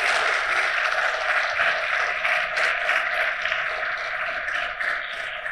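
Audience applauding, dense clapping that begins to die down near the end.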